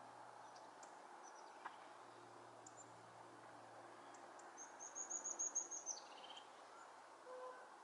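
European robin singing a short, high, thin phrase about halfway through: a quick run of repeated notes that ends by dropping in pitch, over faint outdoor hiss.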